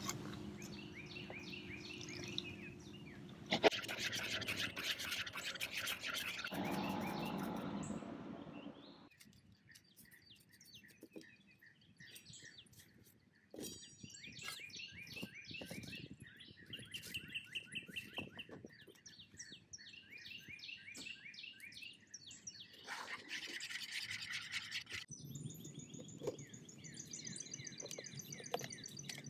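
Wire whisk beating egg-and-flour batter in a plastic mixing bowl, a fast scraping rhythm for several seconds near the start. Birds chirp and sing in repeated short phrases through the rest.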